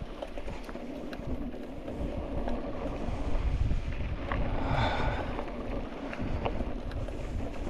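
Wind buffeting the microphone over a low rumble, with scattered light clicks, swelling louder about four to five seconds in.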